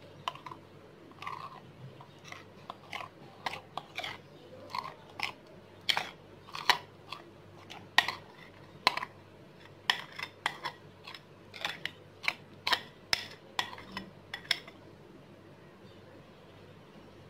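A spoon scraping thick chocolate cake batter out of a glass bowl into an aluminium cake tin: a run of short, irregular clicks that stops a few seconds before the end.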